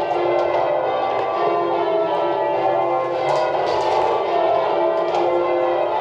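Church bells being rung in change ringing, a continuous run of overlapping strokes.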